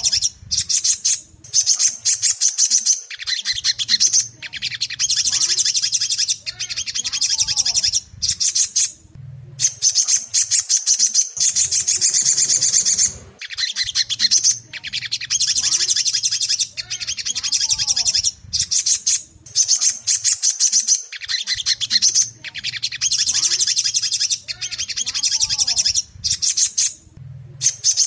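Sogon (sogok ontong) sunbird singing: long runs of rapid, high, twittering chirps in phrases a second or two long, broken by brief pauses, repeating as a loop over a faint low hum.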